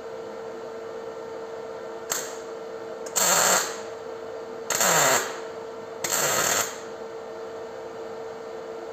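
MIG welder striking short tack welds: a brief blip of arc about two seconds in, then three crackling bursts of about half a second each, over a steady hum. The tacks are laid without shielding gas, which the welder had not turned on.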